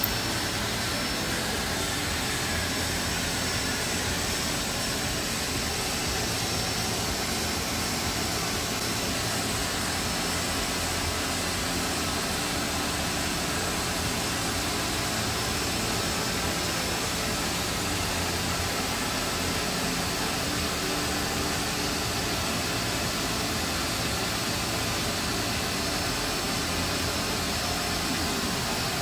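ZBAITU 30 W blue-diode laser cutter running a cut, its cooling fans giving a steady, even whir with a faint high whine over it.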